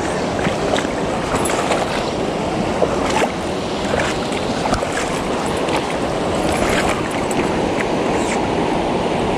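Nagara River water rushing steadily past, with a few short clicks on top.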